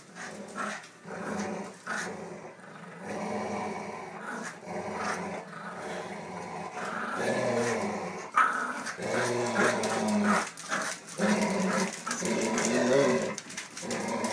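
Dogs growling in long rumbling stretches as they tug a plush toy back and forth: play growling, part of the game rather than aggression. A sharp click cuts in about eight seconds in.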